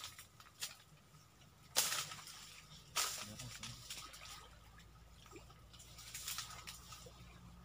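Splashing and knocking in shallow pond water as branches are handled and someone wades: a few sharp splashes, the two loudest about two and three seconds in, each trailing off in a hiss.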